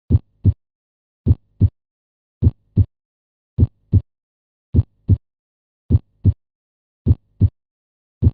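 Heartbeat: the first and second heart sounds (S1 and S2) as a lub-dub pair of dull thumps, repeating about once a second, seven times, with only the two sounds in each beat.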